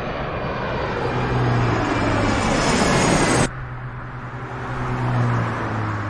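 A steady, engine-like roar with a low hum that builds up, cuts off abruptly about three and a half seconds in, then swells again.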